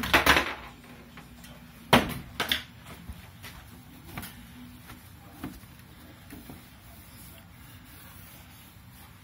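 A few short scuffs and rubs from handling and wiping while cleaning a motorcycle windshield. The loudest come at the start and about two seconds in, over a faint steady hum.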